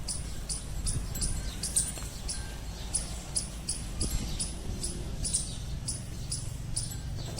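Insect chirping in an even rhythm, a little under three chirps a second, over a steady low rumble.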